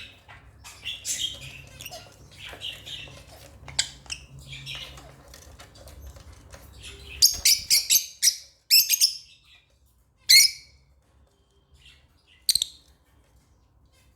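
African lovebirds chirping: a busy stream of short high chirps, then a run of loud rapid chirps about halfway through, followed by two single sharp calls with quiet gaps between.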